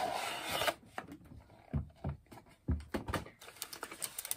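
Cardboard-and-plastic toy box being handled: a brief rustling scrape, then a few light thuds and small clicks as it is turned over.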